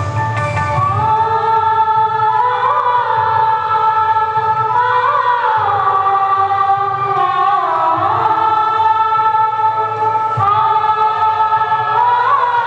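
A choir singing a slow song in long held notes that slide from one pitch to the next, over a low steady accompaniment.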